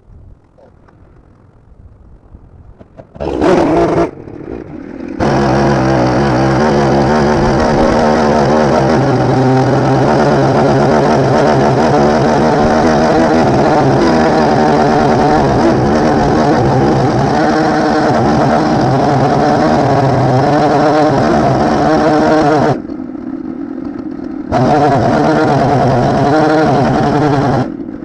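Husqvarna 372 XP chainsaw started about three seconds in and briefly revved, then held at full throttle, running steadily as it mills along a maple log with its old chain, easing off toward idle briefly twice near the end.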